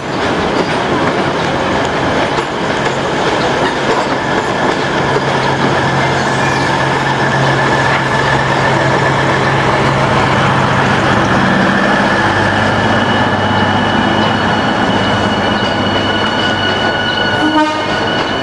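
Diesel multiple unit (KRDE) of the Bandung Raya local service passing close by, its underfloor diesel engines running with a steady drone that drops in pitch about two-thirds of the way through. A quick run of clicks from the wheels comes near the end.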